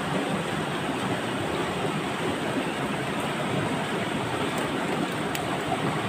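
Steady rushing of running water, like a nearby stream or rapids, with a few faint ticks near the end.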